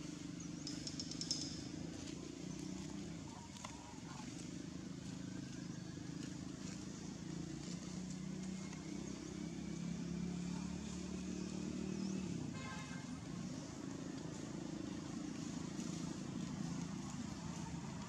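A motor vehicle engine running steadily in the background: a low, continuous hum that swells a little and eases off.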